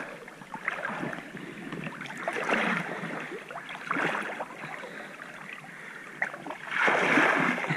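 River water splashing and sloshing as a person wades chest-deep through it, in uneven surges, the loudest near the end.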